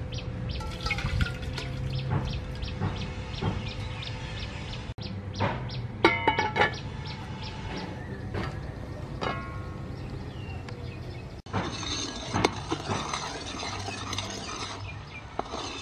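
Metal clinks and scrapes from an aluminium cooking pot, its lid and a metal ladle stirring coconut milk in the pot. A cluster of ringing metallic clinks comes about six seconds in.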